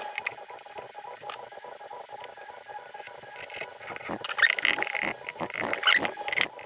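A pencil or marker tracing around a cooling fan set on the cabinet panel: irregular scratchy strokes with small clicks and knocks of the fan being handled, busier in the second half.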